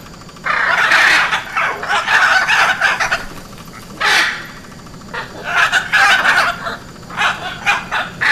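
Hyacinth macaw calls: harsh, raspy squawks in quick runs, broken by short pauses.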